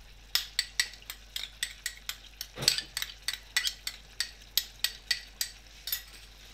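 Spoon clinking against a dish in a quick run of sharp taps, about three to four a second, while the lemon and herb mixture is spooned out over a tajine.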